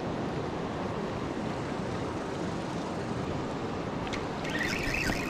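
Steady rush of river water spilling over a low concrete spillway and churning below it.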